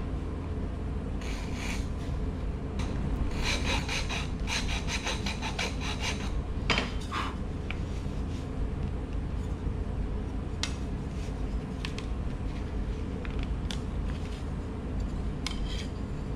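Small hand file scraping the notch of a wooden guitar X-brace, a quick run of short strokes over the first several seconds, followed by a few scattered light clicks as the two brace halves are pushed together to test the lap joint's fit.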